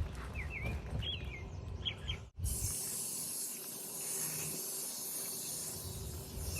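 A few short bird chirps over low outdoor rumble, then, from a cut about two and a half seconds in, the steady hiss of water spraying from an outdoor shower head.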